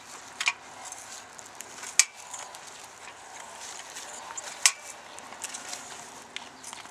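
Tornado twist-tine garden cultivators working soil: metal tines twisting into the earth with a gritty scraping and a few sharp clicks, three of them louder.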